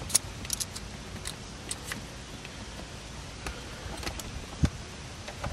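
Scattered light clicks and taps of a screwdriver working at the plastic clips and housing of a 1984–89 Corvette's digital instrument cluster, with one sharper knock about four and a half seconds in.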